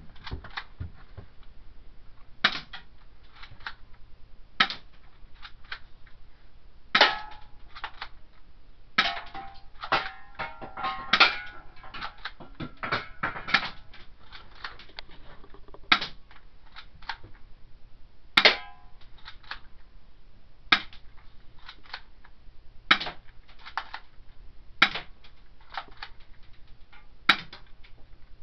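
BB gun firing shot after shot, about a dozen sharp cracks roughly two seconds apart, with lighter clicks and ticks in between. Several shots are followed by a short metallic ring as pellets strike the tin-can targets.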